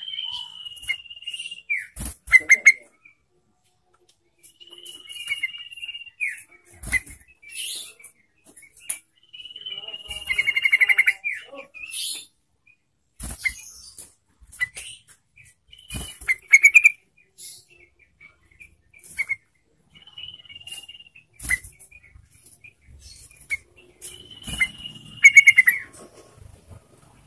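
Yellow-vented bulbul (trucukan) singing in repeated phrases every few seconds, each a held whistle followed by a quick bubbling run of notes, with sharp clicks between phrases.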